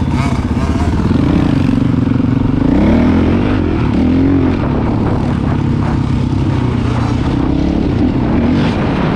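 Honda CRF450L dirt bike's single-cylinder four-stroke engine running at low speed in low gear. The engine note dips and rises a few times a few seconds in as the throttle is worked.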